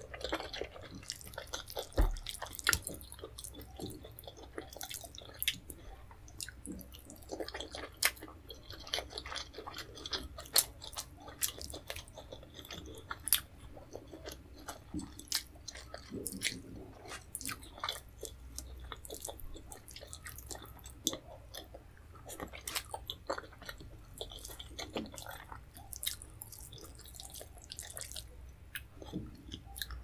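Close-miked chewing of fufu and leafy vegetable soup, with wet mouth sounds and many sharp, irregular lip smacks and clicks. A single low thump about two seconds in.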